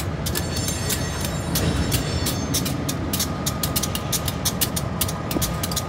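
Pair of EMD GP15-1 diesel locomotives rumbling as they move slowly past a grade crossing. A crossing bell rings in rapid, even strokes, about four to five a second.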